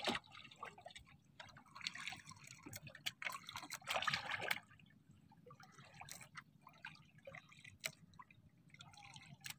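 Sea water sloshing and splashing against the hull of a small outrigger boat, in two washes with the second louder, then scattered drips and small splashes.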